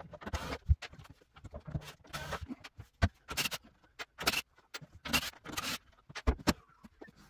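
Irregular wooden knocks, clunks and scrapes as shelves are lifted out of wooden upper kitchen cabinets and handled, with a few sharp clicks among them.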